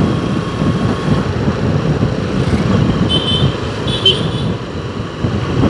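Road traffic noise: a steady rumble of passing vehicles, with two short high-pitched beeps about three and four seconds in.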